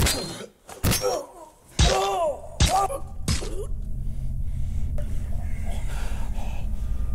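A run of sharp hits, about one a second through the first three and a half seconds, several of them with a short gasping cry; then a steady low rumble.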